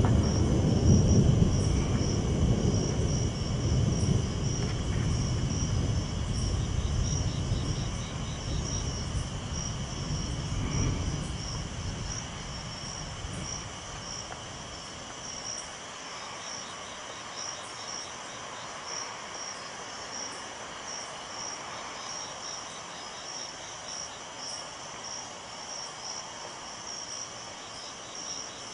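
Night-time crickets chirping in steady rapid pulses. A low rumble is heavy at the start and dies away after about ten seconds.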